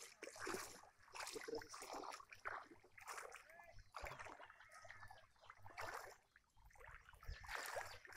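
Faint splashing and sloshing of shallow floodwater, in short bursts about every half second to second, as someone wades through it.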